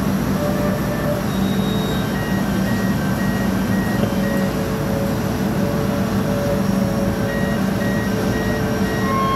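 Sany 600-ton crawler crane's diesel engine running steadily, close by. Twice a short run of high, evenly spaced beeps from a warning alarm sounds over it.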